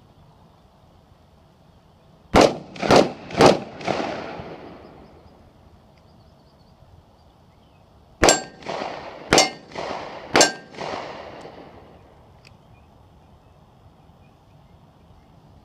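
Gunshots at a shooting range: three quick shots about half a second apart, then three more about a second apart, each with an echoing tail. Steel targets clang and ring with the hits.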